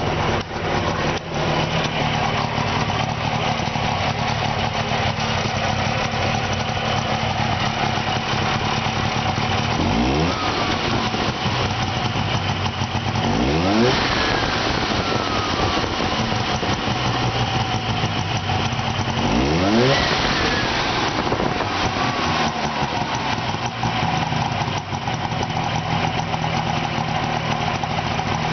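Subaru 360's 356 cc two-stroke twin engine idling steadily, running on both cylinders, with three short blips of the throttle where the pitch rises sharply and falls back.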